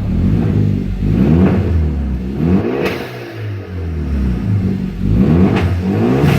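Turbocharged car engine revved twice from idle, the pitch rising and falling each time. Each rev ends in a short sharp hiss as the throttle closes: the newly fitted Turbosmart Kompact blow-off valve venting, faintly.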